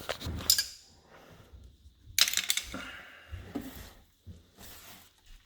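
Light metallic clinks and rattles as plumbing parts and tools are handled while a garbage disposal is taken out. A single click comes about half a second in, and a quick cluster of clatter comes about two seconds in.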